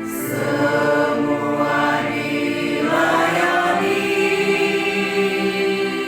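Choir of mixed voices singing a song, holding long notes in several parts that move together.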